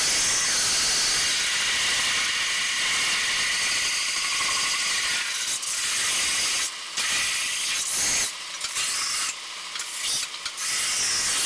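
Steel plate being ground on a vertical belt sander: a loud, steady grinding hiss. Over the second half the piece is lifted off the belt and pressed back several times, so the hiss briefly drops.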